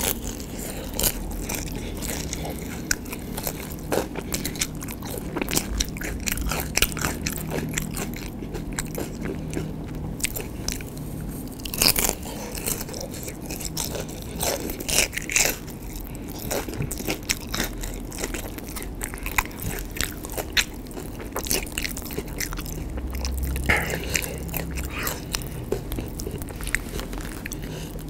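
Biting and chewing of cempedak goreng, battered deep-fried cempedak fruit: a run of crisp crunches from the fried batter mixed with wet chewing of the soft fruit, with the loudest crunch about twelve seconds in.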